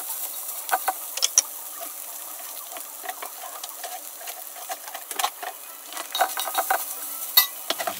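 Food sizzling in a hot pan while a utensil stirs it, with irregular clicks and scrapes against the pan and a couple of sharper knocks, about a second in and near the end.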